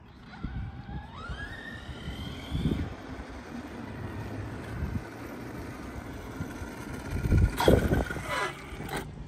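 ARRMA Big Rock 6S electric RC monster truck driving on asphalt: its brushless motor whines, rising in pitch as it speeds up about a second in, over steady tyre noise. Near the end the truck comes close and is at its loudest.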